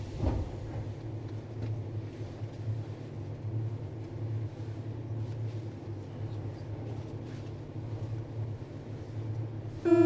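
Interior of a Paris Métro MP 73 rubber-tyred metro car: a steady low hum and rumble with a few faint clicks. Just at the end a loud, buzzy steady tone cuts in.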